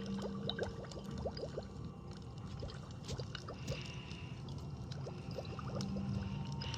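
Fire crackling: scattered sharp pops and snaps over a steady low rumble, with many short rising chirps.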